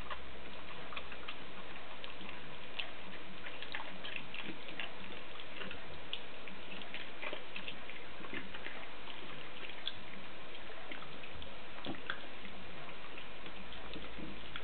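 Soft, irregular wet clicks and smacks over a steady background hiss: a mother dog licking her newborn pup.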